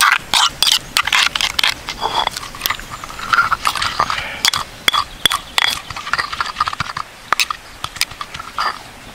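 Stone pestle pounding and mashing chilies and garlic in a wet sauce in a stone mortar, with a metal spoon in the bowl: irregular sharp knocks of stone on stone and wet squelches.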